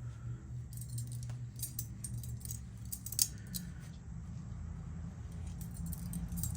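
Light, irregular metallic jingling and clinking, with short scraping strokes, as chrome lowrider bicycle parts are handled and rubbed clean.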